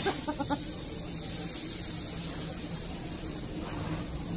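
Bean sprouts sizzling in a hot wok over a roaring gas wok burner, with a quick run of metal spatula clinks against the wok near the start.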